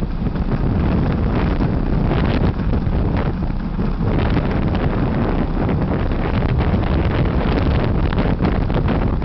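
Wind buffeting the microphone of a camera carried on a moving bicycle: a loud, steady rush with gusty flutter.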